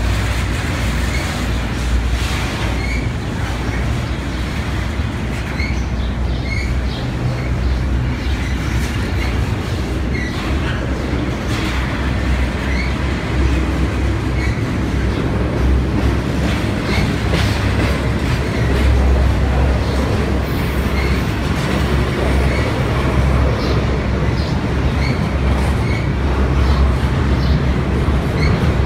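CSX double-stack intermodal freight train passing close by: the well cars rumble steadily, with repeated wheel clicks and short high squeals.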